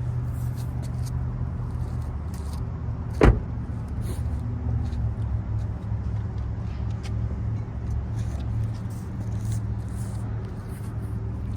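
A car engine idling as a steady low hum, with one loud thud about three seconds in and scattered small clicks and knocks.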